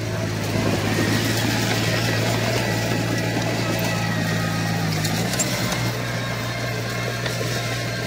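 Komatsu crawler bulldozer's diesel engine running at a steady drone over mechanical noise, its tone shifting slightly about five seconds in.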